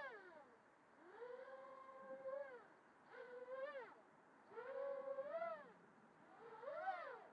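Small racing quadcopter's motors and props whining in about five throttle bursts, the pitch climbing and falling back within each burst, with short lulls in between.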